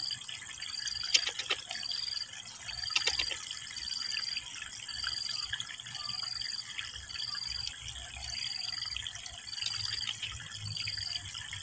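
Trickling stream water at a muddy bank, under a steady high hiss and a short high chirp repeating a little more than once a second, with a few small clicks about one second and three seconds in.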